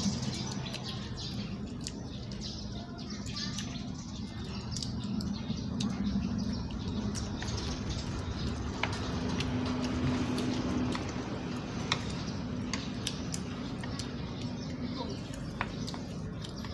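Scattered light clicks and taps of chopsticks against a foil food tray while eating, irregular and unevenly spaced, over a low steady hum that swells briefly about ten seconds in.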